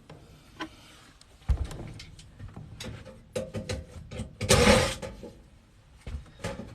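Sheet-metal access door on a furnace's evaporator coil cabinet being worked loose and pulled off: a knock about a second and a half in, scattered clicks and taps, and a louder short scrape just past the middle.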